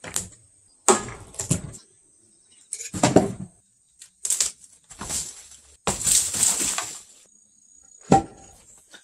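A long-handled tool striking an old wood-framed mud-plaster shed wall, knocking it apart: a series of irregular knocks and cracks with earth and wood pieces breaking loose. The longest crash of falling debris comes about six seconds in. A steady high whine runs underneath.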